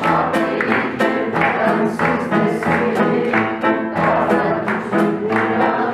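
Live music: an upright piano playing the accompaniment of a Turkish song, with no clear singing.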